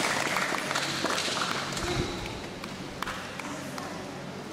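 Audience applause fading out over the first couple of seconds, leaving a few scattered claps, with a low steady hum underneath.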